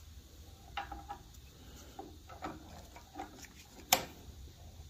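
Small metallic clicks and taps of a bolt being handled and fitted by hand into a brake caliper bracket clamped in a bench vise, with one sharp click about four seconds in.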